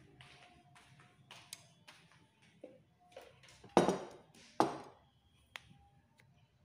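Ceramic bowl and chopsticks clinking as the bowl is handled and set down: light clicks, then two sharp ringing knocks about half a second apart, and one last small click.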